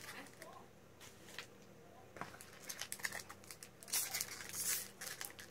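Foil Magic: The Gathering booster pack wrapper crinkling and being torn open by hand. It is quiet for the first two seconds, then comes in crackly bursts, loudest about four seconds in.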